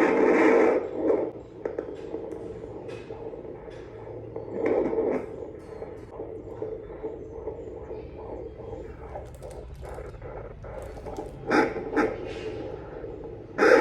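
Handheld fetal doppler's speaker hissing and crackling as its probe slides over gel on a pregnant belly, searching for the baby's heartbeat, with louder whooshing swells now and then as it picks up a signal.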